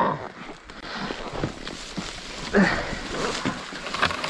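Rustling of brush and dry bracken with scattered clicks and small knocks as someone moves about on foot. A short grunt-like voice sound comes about two and a half seconds in and is the loudest moment.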